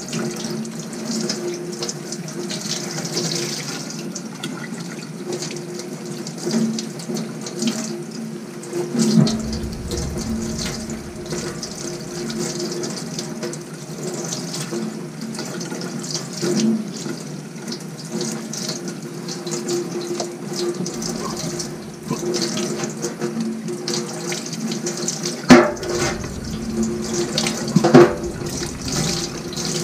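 Tap water running steadily into a sink as a foam air filter is washed out under it, with two sharp knocks near the end.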